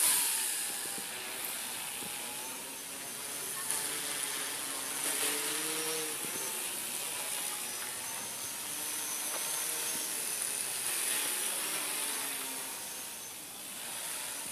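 Tricopter's three electric motors and propellers buzzing in flight some way off, the pitch wavering up and down as the throttle changes, over a steady high hiss.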